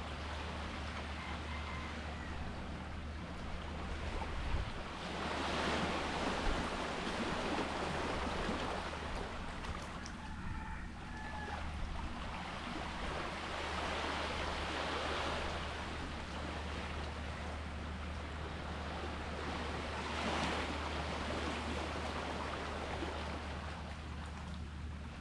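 Sea waves washing in on the shore, the surf swelling louder every several seconds over a steady low rumble.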